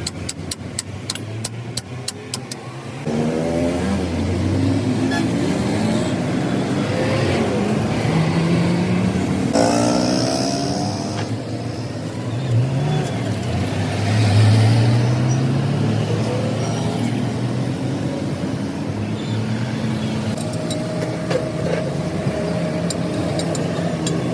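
Vehicle engine running and revving up and down several times, with rapid clicking in the first couple of seconds and again near the end.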